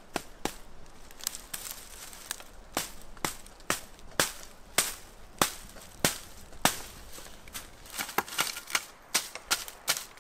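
Wooden mallet knocking a wooden rod into water-reed thatch: sharp wooden knocks about two a second, coming thicker near the end.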